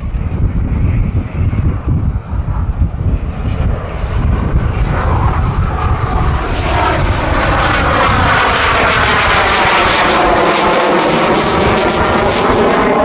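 Eurofighter Typhoon's twin jet engines growing louder as it flies past, building to a loud, steady jet roar with a sweeping, phasing whoosh in its second half.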